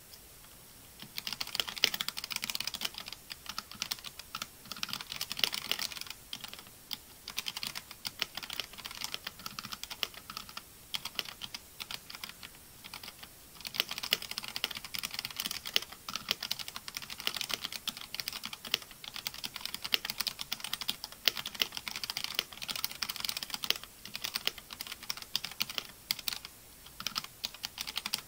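Continuous fast typing on a Redragon CASTOR K631 PRO mechanical keyboard: a dense run of key clicks and bottom-outs starting about a second in, with a short lull about halfway through.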